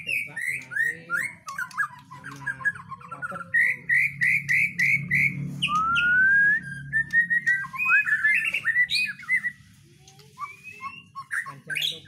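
Caged white-rumped shama (murai batu) singing in varied whistled phrases. In the middle comes a run of about five quick repeated notes, then a clear rising whistle, and the song pauses briefly at about ten seconds.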